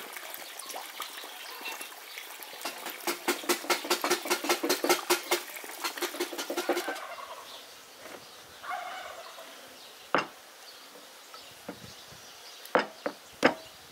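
A domestic turkey gobbling: a long run of rapid rattling pulses that stops about seven seconds in. A few sharp knocks follow near the end.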